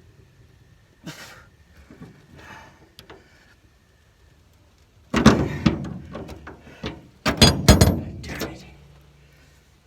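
Steel tools knocking and clattering on a stripped T55 Torx truck-bed bolt and the bed around it, in two loud bursts about five and seven seconds in, some knocks ringing. The bit will not hold in the worn bolt head.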